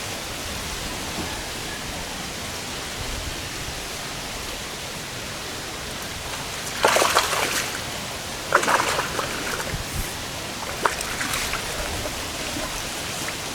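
Steady hiss of water, with two louder splashes about seven and eight and a half seconds in, followed by a few smaller splashes.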